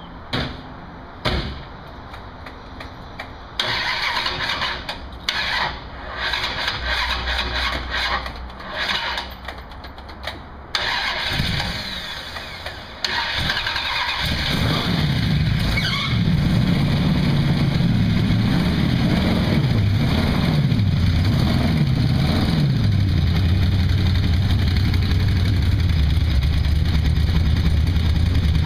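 1932 Ford hot rod's engine being cranked and started: after several seconds of stop-start cranking it fires up. It is blipped up and down a few times, then settles into a steady idle.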